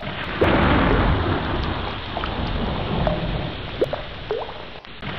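Rain falling into water with scattered drips, under rolling thunder that swells loudest about half a second in.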